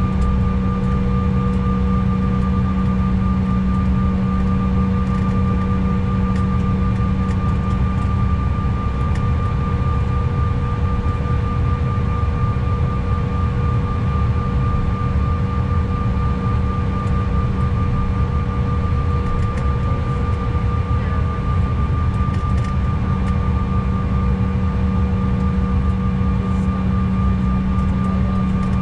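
Cabin sound of a Mitsubishi CRJ900's rear-mounted GE CF34 turbofans at low thrust while taxiing: a loud, steady rumble with a constant whine and no spool-up.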